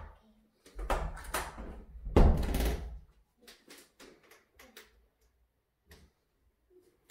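Wooden built-in cupboard door knocking and thudding shut in a small room: two loud clusters of bumps about a second apart, then only faint scattered taps.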